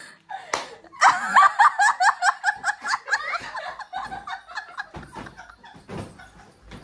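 Hearty, rapid laughter that starts about a second in and tails off after a few seconds, with a few soft thuds from pillows being swung and landing.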